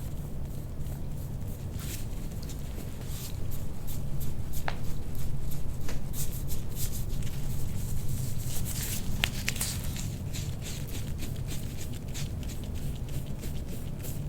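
Hands working over skin and clothing during neck massage: soft rubbing and rustling with scattered small clicks, busiest in the middle, over a steady low hum.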